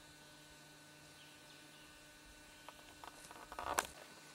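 A faint steady hum, then from about two-thirds of the way in, several footsteps crunching on a gravel and leaf-litter path, the loudest near the end.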